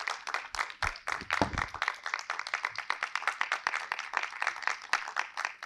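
A small audience applauding: many hands clapping, dense and irregular, throughout.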